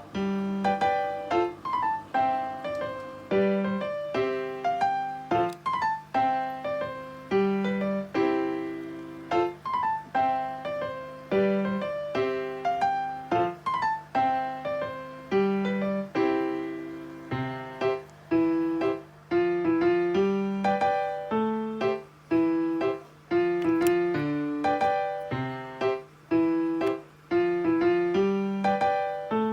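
Background music: a gentle piano tune of separate, evenly paced notes over a held low note.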